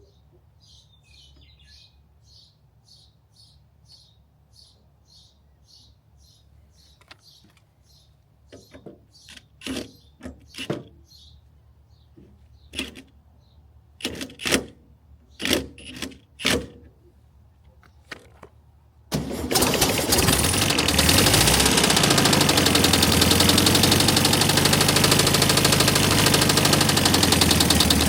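Faint, even ticking, then a handful of separate metallic knocks. About two-thirds of the way in, the 1971 VW bus's air-cooled 1600 single-port flat-four starts and runs loud and steady. The owner says this engine sounds awful and suspects the cooling fan.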